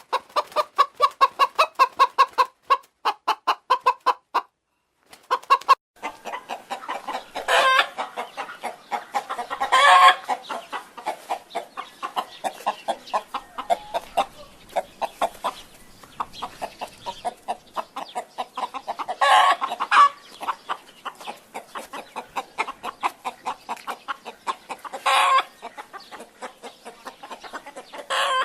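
Hen clucking: a steady run of short clucks, about four a second, broken by a short pause and by a few louder, longer squawking calls.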